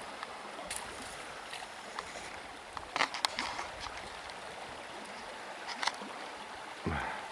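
Stream water running steadily, with a few short, sharp knocks or splashes about a second, three seconds and six seconds in.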